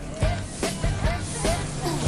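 Background pop music with a steady beat, about two beats a second.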